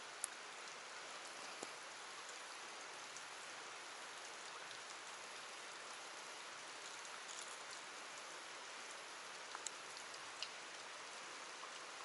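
Light rain falling on a river's surface: a faint, steady hiss with a few small ticks scattered through it.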